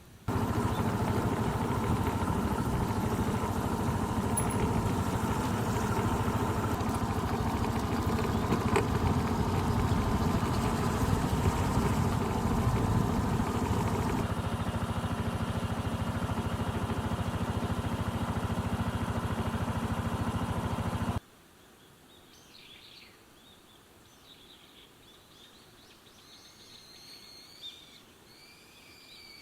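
A loud, steady engine-like drone that starts and cuts off suddenly. It is followed by faint bird calls chirping and whistling.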